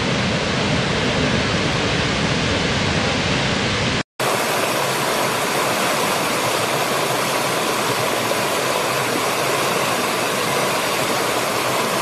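Rushing water of a large waterfall plunging into a gorge, with a deep rumble under the hiss. About four seconds in it cuts off for an instant and gives way to the lighter, steadier hiss of a small stream tumbling over rocks.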